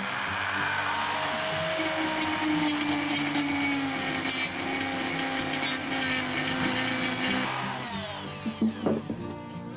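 Handheld power tool motor spinning up with a rising whine, running steadily under load for about seven seconds, then winding down and stopping, followed by a few light knocks. Background music plays underneath.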